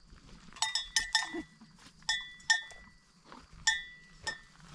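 Metal bells hung on herd animals clanking in an irregular series of ringing strikes as the animals walk along.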